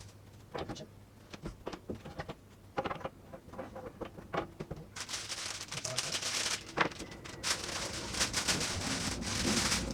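Monitor packaging and accessories being handled: scattered clicks and knocks of items set down and moved, then from about halfway a continuous crinkling rustle of packaging, with sharper knocks in it.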